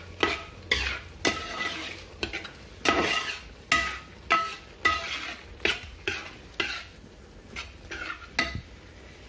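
A spoon stirring and scraping tripe fry in a pan about twice a second, each stroke clinking with a short metallic ring over a light sizzle. The tripe is being stirred until its cooking water is absorbed. The strokes get fainter near the end.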